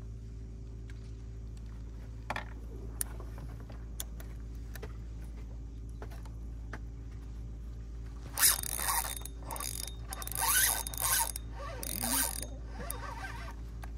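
Fishing reel being cranked, a mechanical ratcheting that comes in several short bursts in the second half, over a steady low hum.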